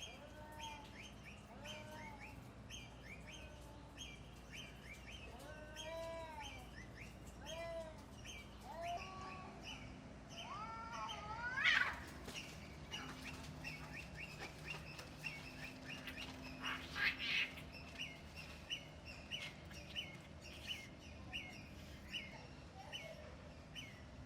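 Small birds chirping repeatedly, one to two short chirps a second, with some lower curved calls and a louder rising cry about halfway through.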